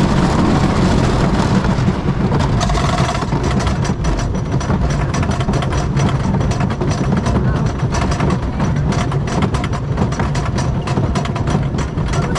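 Knoebels Twister wooden roller coaster train rolling with rushing air and track noise. About three seconds in it catches the chain lift, and a steady low drone from the lift chain runs under rapid clacking from the anti-rollback ratchet as the train climbs the lift hill.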